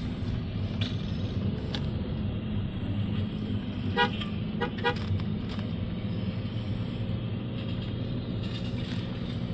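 Steady engine and road noise of a moving car heard from inside, with three short car-horn toots about four to five seconds in, the first the loudest.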